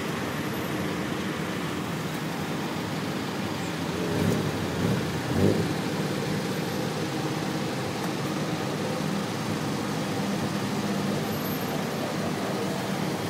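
Tuk-tuk engine idling, heard from the open passenger seat, with surrounding traffic noise in a jam; its note rises and falls briefly about four to five seconds in.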